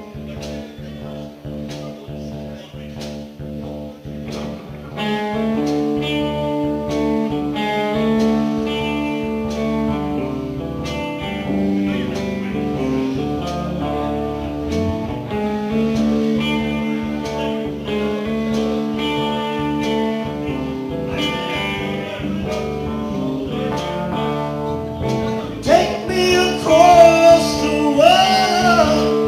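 Live blues band playing a song: guitar, bass and drums with a steady beat, the band filling out and getting louder about five seconds in. Near the end a loud lead line with bending pitches comes in from a harmonica played cupped against a hand-held microphone.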